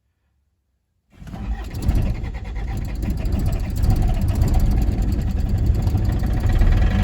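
1981 Isuzu Pup's C223 four-cylinder diesel engine starting about a second in after a hard cold start and then running, growing a little louder. The glow plugs were cycled twice before this start.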